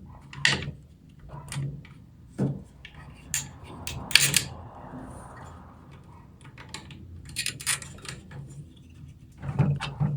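Push-pin fasteners of an Intel stock CPU cooler being pressed into the motherboard: scattered sharp plastic clicks and knocks with rubbing and scraping in between, the loudest click about four seconds in.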